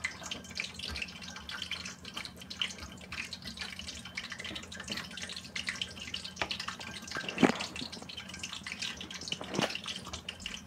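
Kitchen knife mincing pickled plum and shiso on a plastic cutting board into a paste: quick, irregular light taps of the blade on the board, with two louder knocks in the second half.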